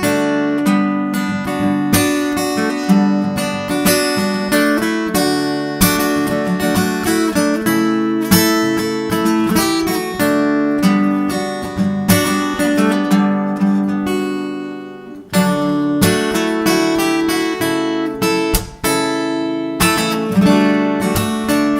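Solo acoustic guitar played fingerstyle: a plucked melody over bass notes, with two brief dips in loudness about two-thirds of the way through.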